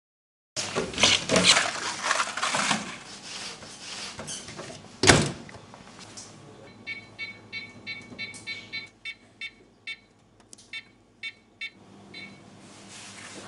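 Microwave oven keypad beeping as buttons are pressed: a run of short, high beeps in the second half, some in quick succession, some spaced out. Before that, clattering and rustling, with one sharp knock about five seconds in, the loudest sound.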